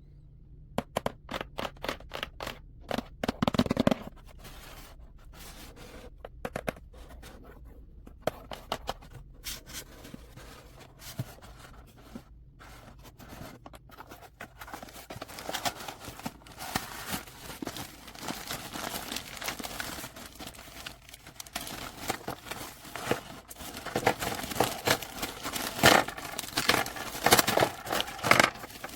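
Hands handling Play-Doh Air Clay packaging and materials: crinkling, tearing and small sharp clicks and scrapes, with gaps at first and busier and louder in the second half.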